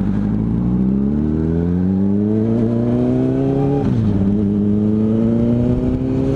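Honda CBR600RR inline-four engine accelerating, its revs climbing steadily, then dropping sharply at an upshift about four seconds in before climbing again.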